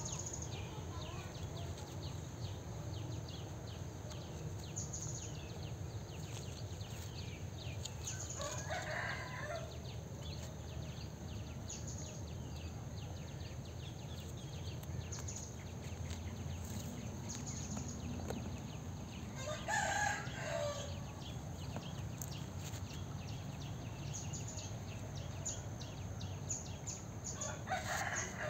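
A rooster crowing three times, about ten seconds apart, the middle crow the loudest. Beneath it run a steady low rumble and a constant patter of short high ticks.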